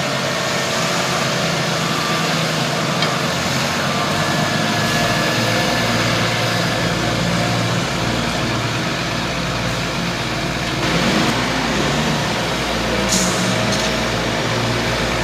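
Caterpillar AP1000D asphalt paver's diesel engine and machinery running steadily, with a deeper rumble joining about five seconds in and a brief hiss near the end.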